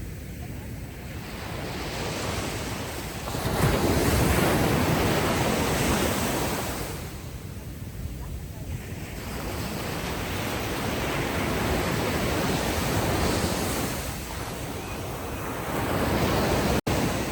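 Ocean waves breaking and washing up on a sandy beach, the surf swelling and ebbing in three surges a few seconds apart. The sound cuts out for an instant near the end.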